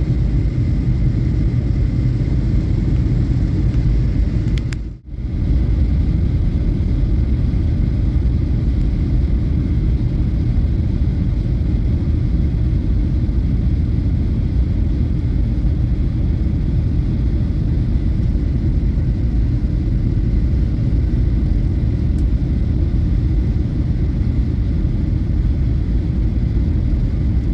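Jet airliner cabin noise heard from a window seat: a steady deep rumble of the engines and rushing air, with a faint high steady tone above it. The sound cuts out for a moment about five seconds in.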